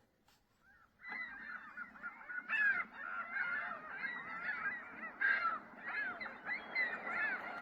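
A flock of birds calling, many short, up-and-down calls overlapping densely. The chorus starts abruptly about a second in and cuts off sharply at the end.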